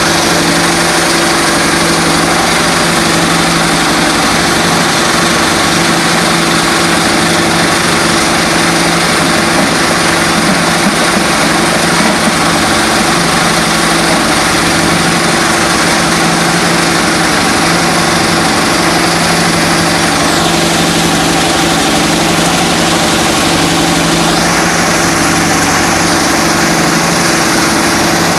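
Stone crusher machine running loudly and steadily: a constant machine drone with a hissing upper layer that drops away for a few seconds near the end, then comes back.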